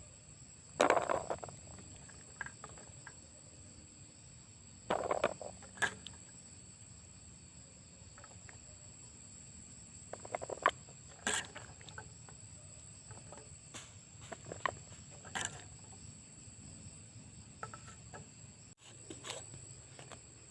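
Crickets chirring steadily at a high pitch, with short crackles and clicks every few seconds from something being handled close by.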